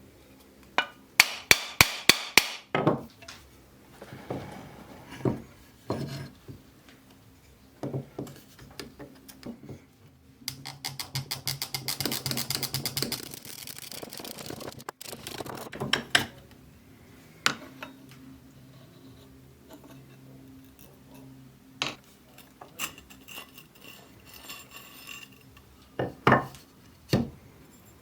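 Hand tools and the parts of a small hand plane being worked on a workbench. A quick run of about seven sharp taps comes near the start, then scattered knocks and clatter. A few seconds of rapid scraping strokes fall in the middle.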